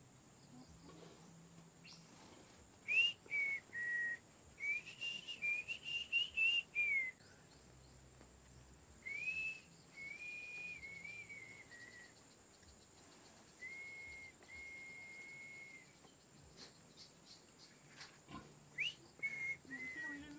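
Someone whistling a wavering tune in high, clear notes: a run of short gliding notes, then a few longer held notes, and a brief phrase again near the end.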